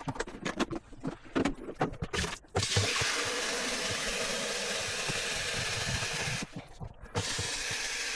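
Hard plastic parts of a robot vacuum's docking station being handled, with clicks and knocks. After about two and a half seconds a steady hissing rush starts, lasts about four seconds, and comes back briefly near the end.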